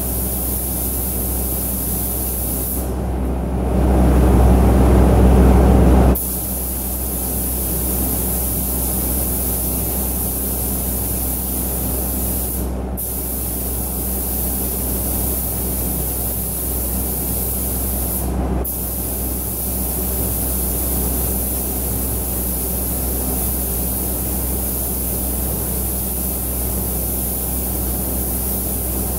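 Compressed-air paint spray gun hissing steadily, over the steady low drone of the spray booth's extraction. The hiss cuts out briefly twice as the trigger is released, and about three seconds in a louder, lower rush of air lasts for about three seconds.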